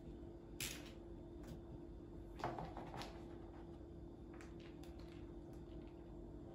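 Quiet kitchen handling sounds: a few light clicks and knocks, with a louder clatter about half a second in and again about two and a half seconds in, over a steady low hum.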